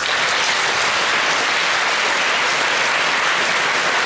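Concert audience applauding steadily, many hands clapping at once.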